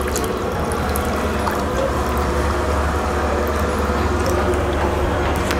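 Water poured steadily from a plastic jug into a bowl, one continuous stream that grows slightly louder as it goes.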